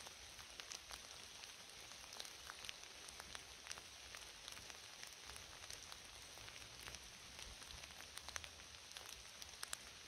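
Light rain falling on forest foliage: a faint, steady hiss with many separate drops ticking sharply at irregular moments.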